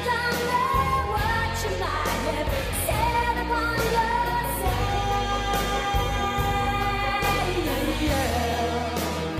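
Background music: a song with a singing voice over bass and a steady beat.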